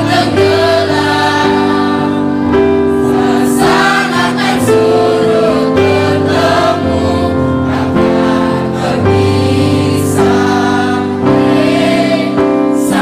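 Mixed choir of women's and men's voices singing together in harmony, holding notes and moving from chord to chord.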